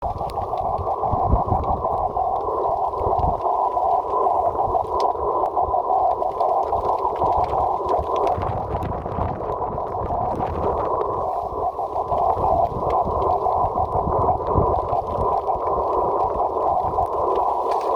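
Receiver audio of a 47 GHz rain-scatter signal: a rough, fluttering hiss in a narrow pitch band, the carrier smeared by scattering off falling rain. A couple of low thumps come in the first few seconds.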